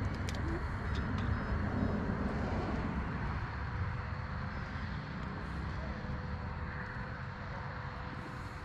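Radio-control model airplane flying overhead: a steady drone that is loudest in the first few seconds and then slowly fades as the plane moves off.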